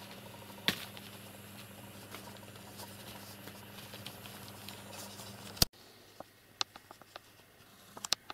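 Faint handling noise from a handheld camera: scattered soft clicks and rustles over a steady low hum, with one sharper click near the start. About five and a half seconds in a loud click cuts it off, and it turns quieter, with a few isolated sharp ticks.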